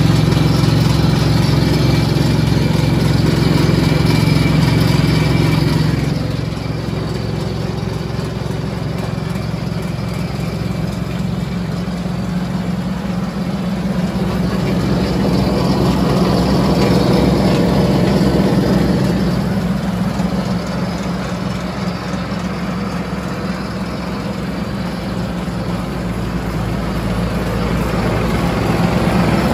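Diesel engine of a Demag DF 65C tracked asphalt paver running steadily, its sound dipping about six seconds in and swelling again later.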